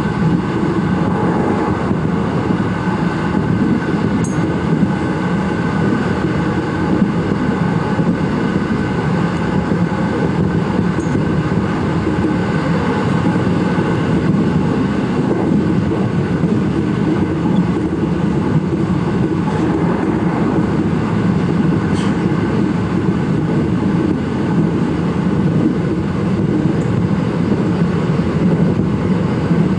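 JR local electric commuter train running along the line, heard from the leading car: a steady rumble of wheels on rail with a faint, even motor hum, and a couple of faint ticks.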